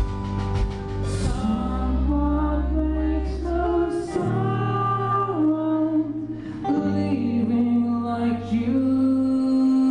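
Live rock band playing a song: a singing voice glides over held chords and a steady bass line.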